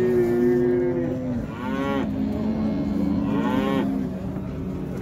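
Cattle mooing: several long, overlapping moos, with two shorter calls that swoop in pitch about one and a half and three and a half seconds in.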